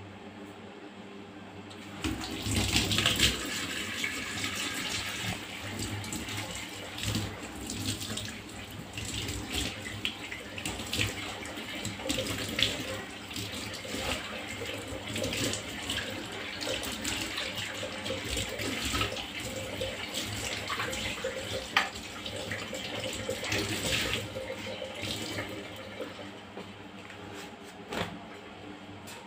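Kitchen tap running into a stainless-steel sink, the water splashing over a hand held under the stream, with scattered small clicks and knocks. The tap comes on about two seconds in with a loud first splash and shuts off near the end.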